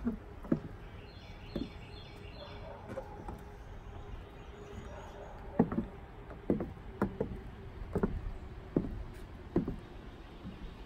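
Stiletto-heeled boots stepping on wooden deck boards: slow, uneven knocks, most of them in the second half. Birds chirp faintly about a second in.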